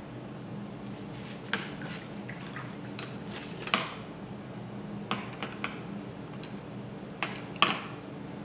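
Several light, sharp clinks and taps of painting tools against hard surfaces, scattered irregularly, over a steady faint hum.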